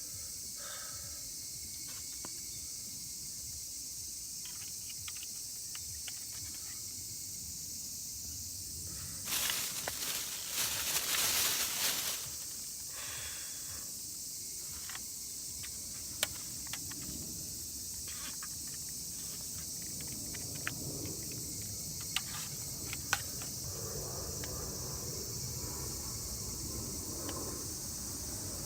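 Steady high-pitched chorus of insects. A loud rustling comes about a third of the way in and lasts some three seconds, and a few sharp clicks and knocks follow later.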